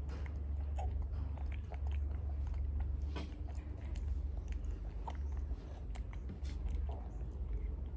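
A small monkey biting and chewing fruit: irregular soft clicks and crunches, over a steady low hum.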